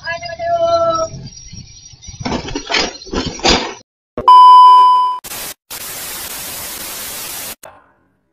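A TV test-pattern tone: a loud, steady one-kilohertz beep lasting about a second, followed after a short break by about two seconds of television static hiss that cuts off suddenly. Before it come a brief pitched voice-like sound and some scraping noises.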